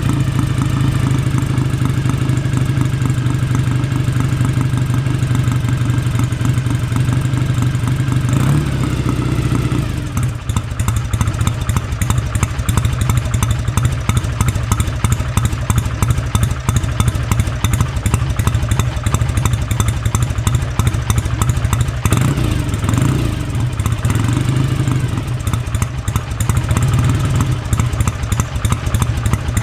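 1966 BSA Lightning's 650 cc parallel-twin engine idling, running at its first start in 14 months. About nine seconds in the idle changes and turns rougher and more uneven, with a few short rises and falls in engine speed later on.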